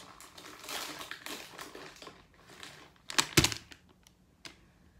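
Plastic soft-bait bag crinkling and rustling as a Zoom Salty Super Fluke is pulled out of it by hand, with a loud sharp knock a little past the middle and a small click about a second later.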